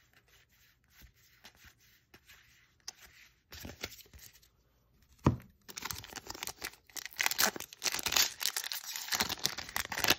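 Soft clicks of trading cards being handled, then a sharp snap about halfway through followed by several seconds of loud crinkling and tearing as a foil booster pack wrapper is ripped open and the cards are pulled out.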